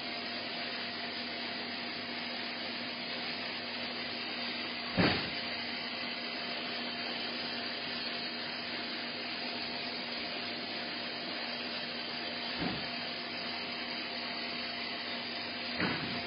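Mazak VTC-16A vertical machining center running: a steady whir with a constant hum. A sharp knock comes about five seconds in and two softer knocks come near the end.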